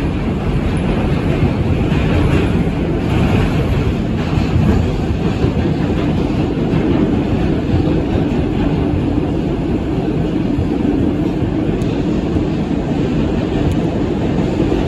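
New York City subway train running at speed through a tunnel, heard from inside the car: a steady, loud rumble of wheels on rails.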